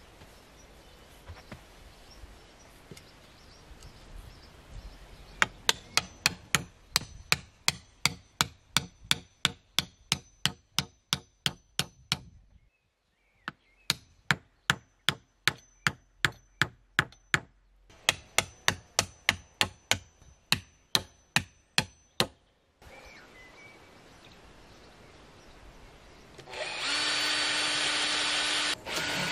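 Hammer driving pine stakes into dry soil: sharp, even blows about three a second, in three runs with short pauses between them. Near the end a cordless drill starts and runs steadily with a whine.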